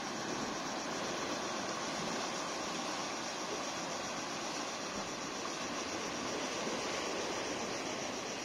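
Steady rush of surf as waves wash in and foam around boulders on a rocky shore.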